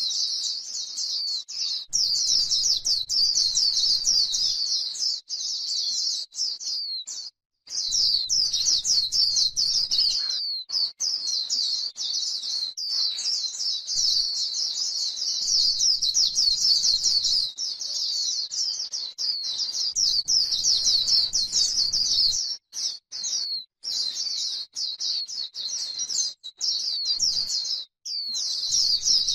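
White-eye (chim khuyên) singing its rapid, high twittering 'líu' song: a dense, almost unbroken run of quick downward-sweeping notes, with a brief break about seven seconds in and another near the end.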